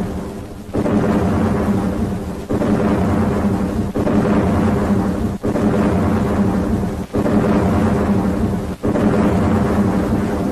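War-film battle sound effects: a loud, continuous rumble that dips briefly about every one and a half seconds.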